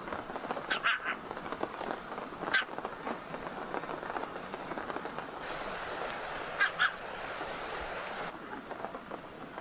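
Small Pomeranian giving short, high yips, three times, over the steady hiss of rain falling on the campsite.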